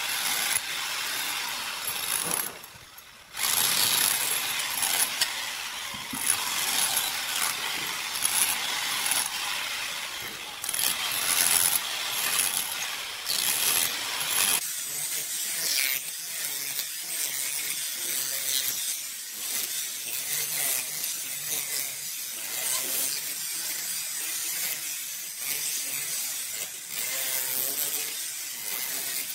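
Handheld electric rotary hammer with a chisel bit hammering at ceramic wall tiles, chipping them off the concrete. It stops briefly about three seconds in, then carries on, sounding thinner from about halfway through.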